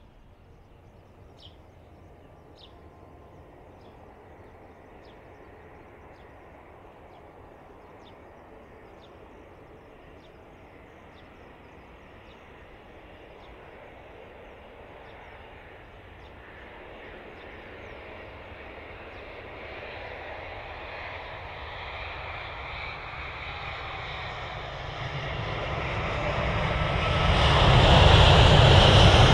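Jet airliner's engines growing steadily louder as it approaches, from faint to loud, at their loudest near the end.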